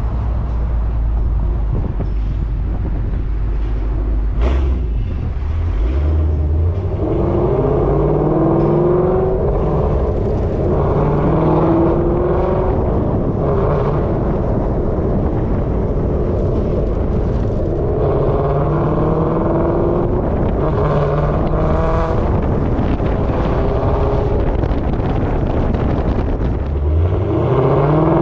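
2016 Ford Mustang GT's 5.0 Coyote V8 breathing through Kooks headers and a Corsa Extreme cat-back exhaust. It idles low for several seconds, then is revved up several times, the pitch rising and falling with each rev, with a last sharp rise near the end.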